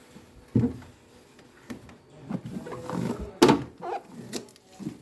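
Knocks and clatter of plastic refrigerator parts being handled during cleaning, with a thump about half a second in and a sharp click about three and a half seconds in.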